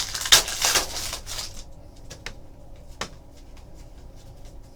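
Trading cards being handled and slid against one another, a dense rustle for about a second and a half, then a few light clicks.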